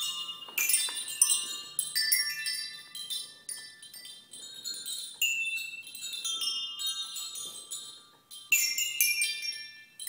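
Musical swing's colored chime tubes, hung beneath the seat, knocking together and ringing as the swing sways. The strikes come in irregular clusters of high, bell-like tones that ring on and fade, with several louder clusters as the swing moves.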